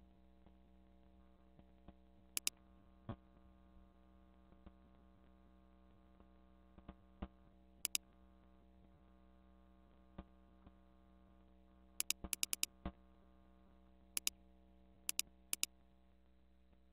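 Computer mouse clicking, mostly in quick pairs and a burst of several about twelve seconds in, with a few softer clicks between, over a steady electrical hum.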